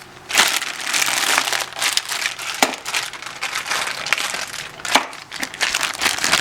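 Packaging crinkling and rustling as it is rummaged through by hand, with a few sharp clicks and crackles.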